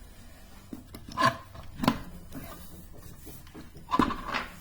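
A box being opened and its contents handled: a few separate rubs and knocks, the sharpest near two seconds in and a longer scrape about four seconds in.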